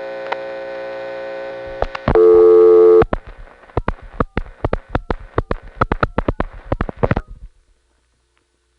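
Recorded long-distance telephone line: a steady buzzy tone, then about two seconds in a louder tone lasting about a second. This is followed by some four seconds of rapid, sharp clicks, typical of switching equipment dial-pulsing digits.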